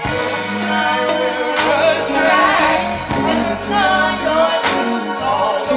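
Live band playing a slow soul ballad, with a long, wavering sung note and cymbal hits over held bass notes.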